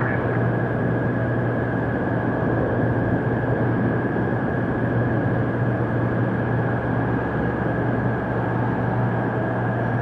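Steady low rumble and hiss of a Boeing 767 airliner's jet engines on short final approach, at an even level with a constant low hum.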